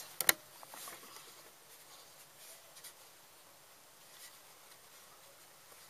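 A sharp click just after the start, then faint rustling and scuffing of cotton fabric as a stuffed cloth doll is pushed and arranged under a sewing machine's presser foot; the machine itself is not running.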